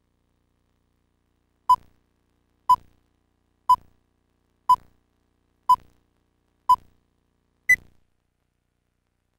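Countdown leader beeps: seven short electronic beeps about a second apart. The first six are at one pitch and the last is higher.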